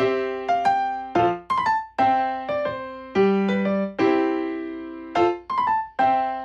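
Background music played on a keyboard: a light melody of single notes, each struck and left to fade, a few notes a second.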